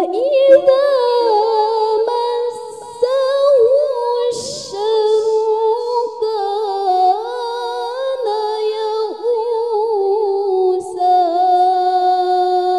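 A young woman's unaccompanied melodic Quran recitation (tilawah): a high voice holding long, wavering notes that glide up and down in ornamented phrases.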